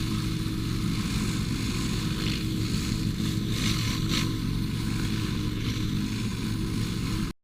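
A small engine running steadily under a hiss, the kind of engine-driven cleaning equipment that drives a pressure washer. The hiss briefly brightens a few times, and the sound cuts off suddenly near the end.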